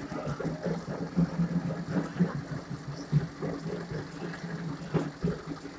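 An engine running steadily at idle, a low even hum with scattered short knocks over it.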